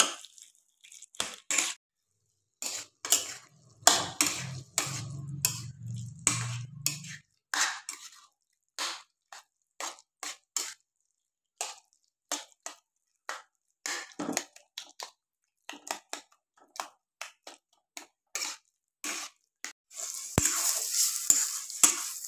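Spatula scraping and knocking against a kadhai while mashed roasted eggplant, onion and tomato are stirred together, in irregular strokes about one or two a second. Near the end there is a denser, louder rush of scraping.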